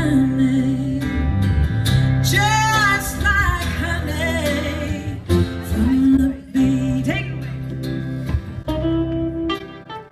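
Live duo music: acoustic guitar and 8-string electric guitar playing the close of a slow song, with a woman's voice singing a few held notes.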